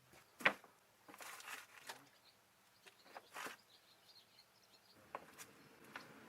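Scattered faint clicks, knocks and rustles of hand tools and parts being handled during work on a car's fuel hose, the sharpest click about half a second in.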